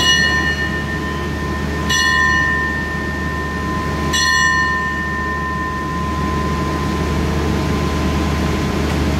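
A bell struck three times about two seconds apart, each strike ringing on and fading slowly, over the steady low rumble of a train standing at the platform. At Thai railway stations the bell is rung as the signal for the train's departure.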